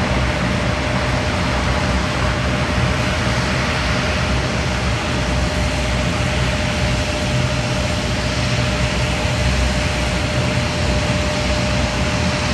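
Steady jet engine noise from a twin-engine regional jet taxiing close by, a continuous whine over a low rumble.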